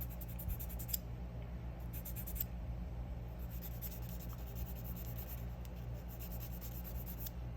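Glass nail file stroked quickly back and forth across a fingernail to shape it, a light scratching in short runs of rapid strokes, with pauses between them.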